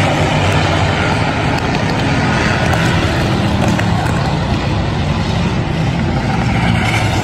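Several race cars' engines running loud and steady as a pack of cars races around a speedway oval.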